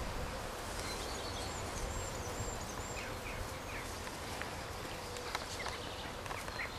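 Outdoor garden ambience: a steady hiss of background noise with a few faint high chirps in the first few seconds and scattered small ticks later on.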